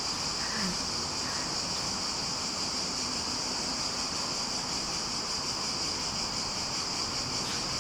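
Steady, high-pitched insect chorus with no breaks or changes.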